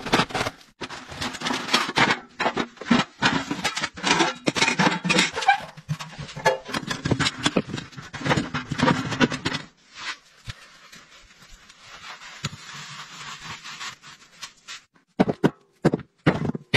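Rustling and knocking of gear being handled, with many short clicks and scrapes, easing to a quieter steady hiss about ten seconds in, then a few sharp knocks near the end.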